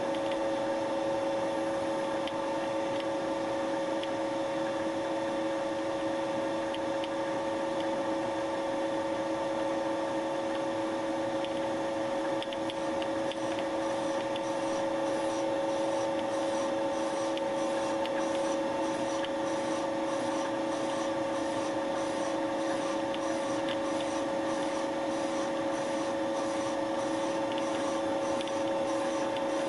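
Milling machine running steadily with a constant hum, its spindle turning a Wohlhaupter UPA5 facing and boring head on the final boring pass through a plastic bearing seat. From about halfway through, a light scraping comes in, repeating at an even pace as the boring tool cuts the plastic.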